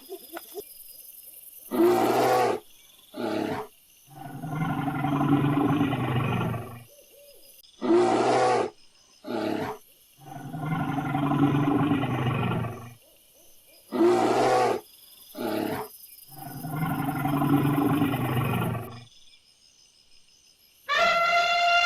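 An animal calling: a short loud call, a second short call, then a long drawn-out low call, the same sequence three times. Near the end a higher call starts that falls in pitch.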